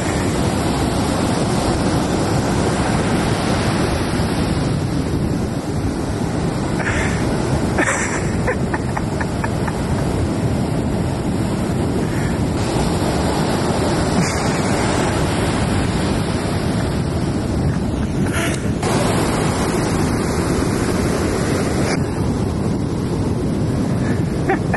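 Ocean surf: waves breaking and washing in as a steady, heavy roar.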